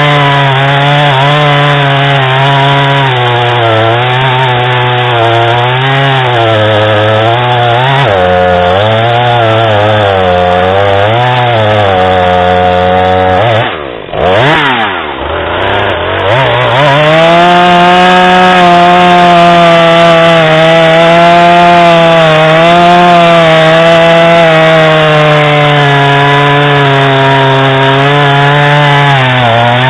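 Husqvarna 440e X-Torq chainsaw's 40.9 cc two-stroke engine running at high revs while cutting wood, its pitch wavering up and down under the load. About halfway through it drops off sharply and climbs back up, then holds a steadier high pitch.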